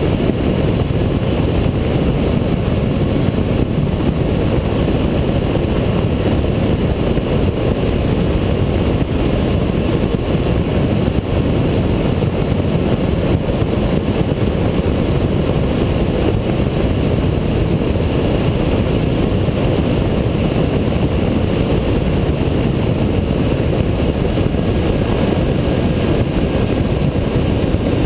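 Honda ST1300 sport-touring motorcycle cruising at steady road speed: a constant rush of wind on the bike-mounted camera's microphone, with engine and tyre noise beneath it.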